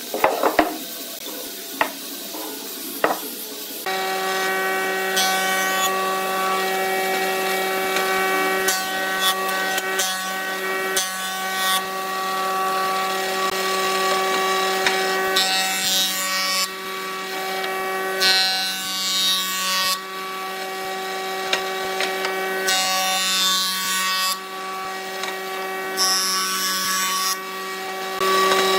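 A few knocks, then about four seconds in a woodworking jointer starts a steady hum. Stretches of rasping, hissy noise come and go over the hum several times.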